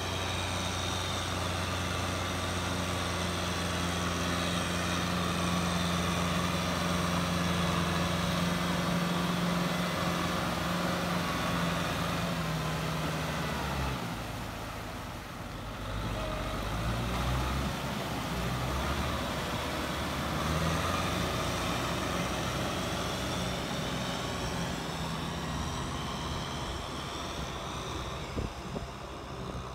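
Kubota M6040SU tractor's diesel engine running steadily under load as it drags a disc plow through a flooded rice paddy. About halfway through, the sound cuts to another tractor's diesel engine running as it pushes mud with a front blade.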